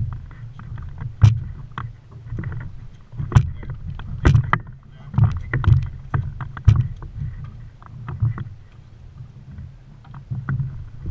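Small boat rocking on open water: water slaps the hull in irregular low thumps about once a second, with sharp knocks from gear and footing aboard.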